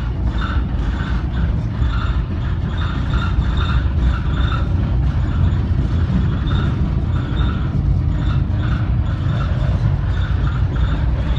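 Steady low rumble of a vehicle driving along a road, heard from inside, with a short higher-pitched rattle or squeak repeating about twice a second.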